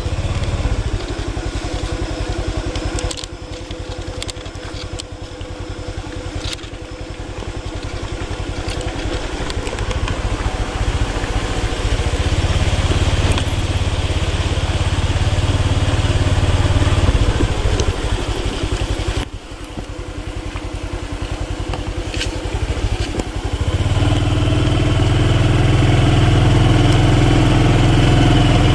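Motorbike engine running while it is ridden slowly over a very bumpy road, with scattered knocks and rattles from the bumps. The engine eases off twice, about three seconds in and again past the middle, and picks up again each time. It runs harder and steadier near the end.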